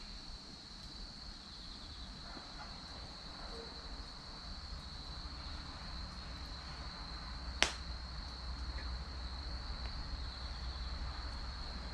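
Wood fire burning, with one sharp pop of crackling firewood about two-thirds of the way through, over a low rumble and a steady high-pitched tone.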